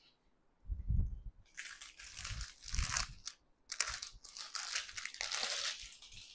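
Clear plastic saree packet crinkling as it is handled, with a few dull bumps, the strongest about a second in.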